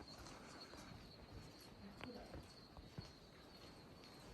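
Near silence: faint outdoor ambience with a thin steady high tone and a few faint ticks.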